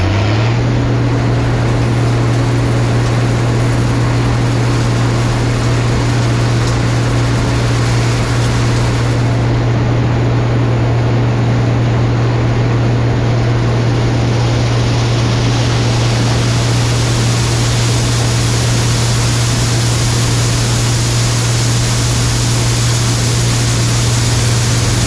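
Farm machine engine running steadily at high revs, settling to an even hum just after revving up, with a hiss that grows brighter about halfway through.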